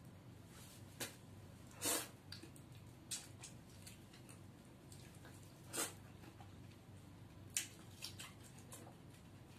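Wet eating sounds from drumstick curry eaten by hand: a handful of short smacks and sucks one to two seconds apart, the loudest about two seconds in.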